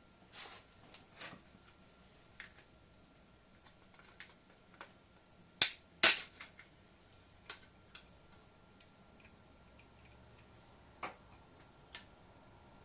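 Irregular sharp clicks and knocks from slippers tumbling in an Indesit washing machine's drum, with two loud knocks close together about halfway through.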